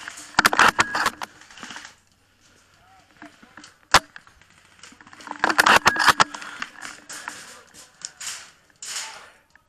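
Airsoft gunfire: two bursts of rapid sharp clicks about five seconds apart, with a single sharp crack about four seconds in.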